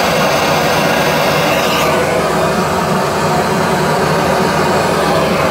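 Steady rushing noise test signal, typical of pink noise, played loud through two identical horn-loaded PA speakers standing side by side while their combined frequency response is measured for comb filtering.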